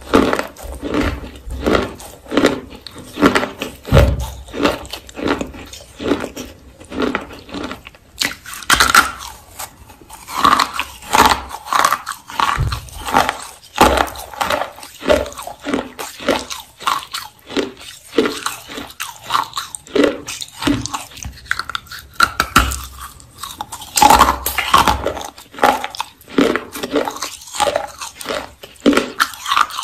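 Clay rolls being bitten and chewed close to the microphone: sharp crunching bites and a steady run of chewing crunches, a few a second.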